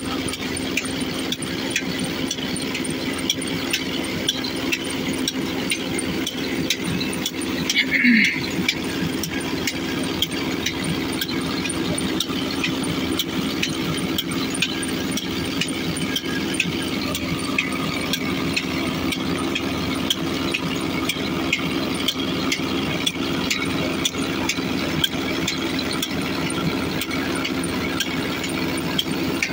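Holland tractor's diesel engine running steadily under load, driving a bore-well water pump through a flat belt, with regular light ticks over its steady note. A brief louder, higher sound comes about eight seconds in.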